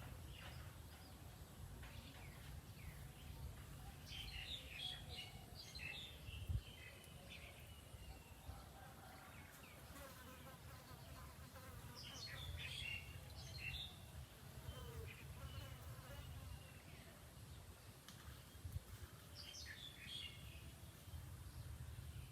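Faint outdoor natural ambience: a low steady drone, with short bursts of high chirping calls three times.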